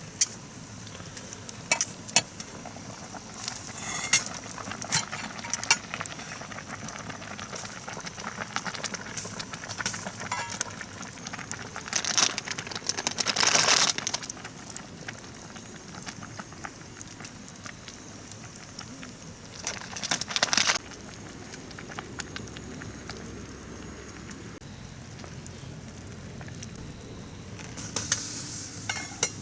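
Kimchi hot pot bubbling and simmering in a cast campfire pot over the fire, with scattered clinks and several longer scraping, stirring bursts from utensils in the pot.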